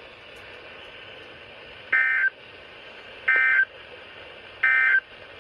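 NOAA Weather Radio SAME digital data tones: three short bursts about a second apart, the end-of-message code that closes the broadcast warning. They sit over a steady faint radio hiss.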